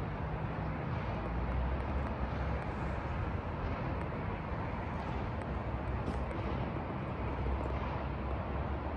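Steady outdoor city ambience heard from high above: a low rumble of wind on the microphone under an even hiss of distant traffic.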